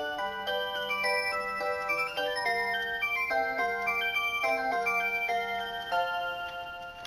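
A clock's built-in electronic Christmas melody playing: clear, chime-like notes in several voices, a steady tune with a bass line under the melody.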